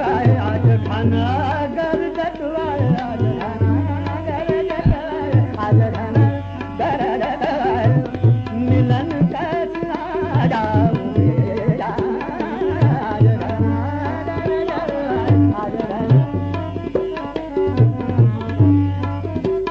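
Hindustani classical vocal singing a fast bandish in Raga Hamir, accompanied by tabla playing drut ektaal (a fast twelve-beat cycle) with frequent deep bayan strokes, harmonium following the melody and a tanpura drone.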